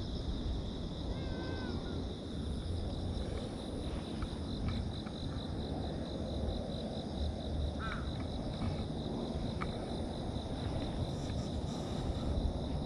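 Outdoor ambience: a steady low rumble with a steady high-pitched insect drone over it, and a few faint short chirps.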